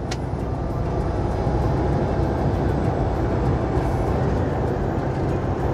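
Semi-truck engine and road noise heard inside the cab at highway speed, a steady low drone, with a single short click right at the start.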